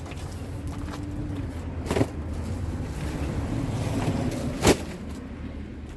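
Boxes being handled and moved, with two sharp knocks, the second louder, over a steady low rumble.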